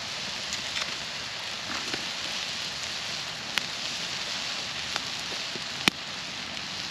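Wood campfire crackling, with a few sharp pops, the loudest about six seconds in, over a steady sizzle of meat cooking on a cast iron grill grate above the fire.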